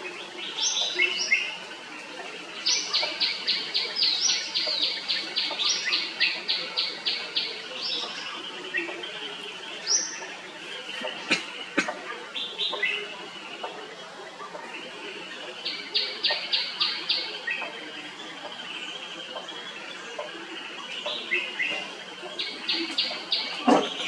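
Red-whiskered bulbul singing: runs of quick, evenly repeated chirps and scattered single notes over a steady background hiss. A few sharp clicks come through, the loudest just before the end.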